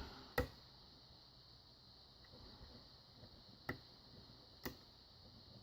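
Lock pick and tension wrench working the pins of a pin-tumbler padlock with security pins: three faint, sharp ticks, one shortly after the start and two about a second apart later on.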